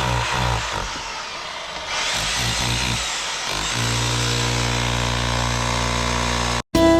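Evolution R300DCT+ 12-inch electric disc cutter cutting into brickwork, then running on steadily at speed off the cut from about halfway, before cutting off abruptly near the end.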